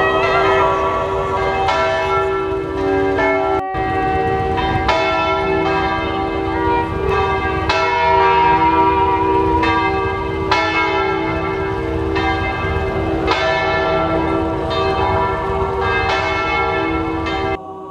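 Church bells ringing for a funeral, a new stroke about every second and a half, each ringing on into the next. The ringing cuts off suddenly near the end.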